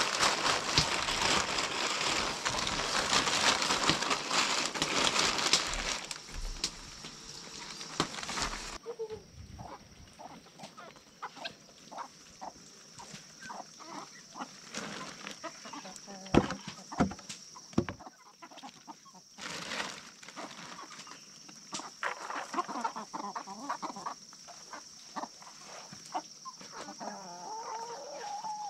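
A steady rushing noise fills the first several seconds and stops abruptly. Then chickens cluck on and off with scattered short calls.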